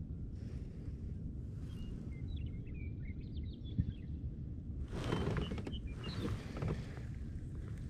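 Outdoor ambience on open water: a steady low rumble, a few faint bird chirps about two to three seconds in, and two short bursts of rustling noise about five and six seconds in.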